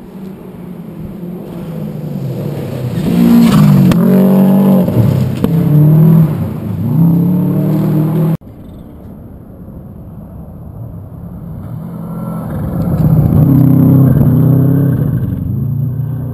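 Two rally cars passing at speed on a gravel stage, one after the other, each swelling loud as it goes by, its engine revving hard with the pitch climbing and dropping through gear changes. The first pass cuts off abruptly about eight seconds in, and the second car builds up and passes near the end.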